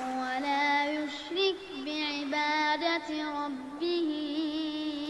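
A child's voice reciting the Quran in melodic tajweed style, drawing out long held notes with small wavering ornaments between them.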